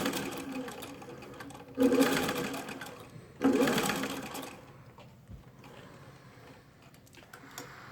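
Singer 15-91 sewing machine's gear-driven potted motor running and stitching in spurts at varying speeds as the foot pedal is pressed and eased. It speeds up suddenly about two seconds in and again about three and a half seconds in, each time winding down in pitch, then runs much quieter in the second half.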